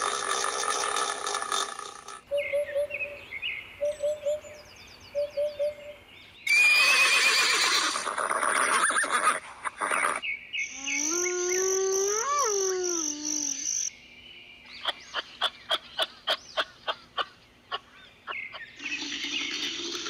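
A string of different animal calls one after another, each cut short. There are short repeated chirps, a loud stretch of calls, and a horse whinnying with a rise and fall about twelve seconds in, followed by a quick series of clicks.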